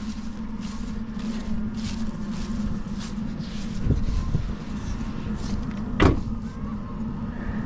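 Heatmaster G7000 outdoor wood furnace's draft fan running steadily with a low hum: the water is still far below 180 degrees, so the fan stays on. A single sharp knock about six seconds in.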